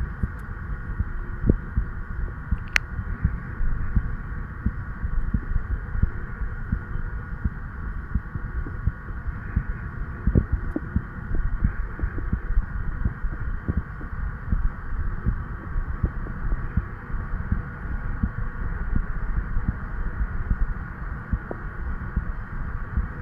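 A 36-year-old man's heartbeat, picked up over the tricuspid valve area through an old stethoscope chest piece with a lavalier microphone in its tubing: repeated low thuds. A steady hum sits behind the beats, and there is one sharp click about three seconds in.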